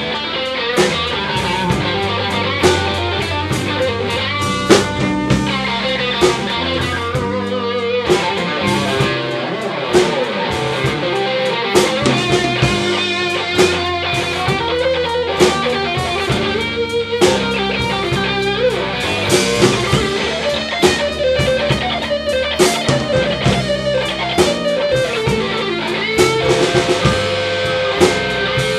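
Live slow blues played by a band: an electric guitar and an archtop guitar play an instrumental passage over a steady drum beat, with no singing.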